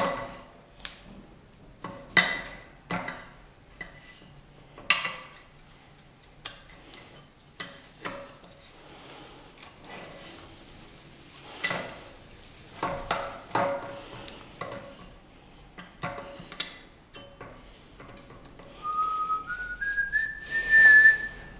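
Metal clinks, taps and light scraping as a metal cylinder sleeve and piston are handled and fitted onto an oil-free air compressor pump's crankcase. Near the end, a few whistled notes rise in steps.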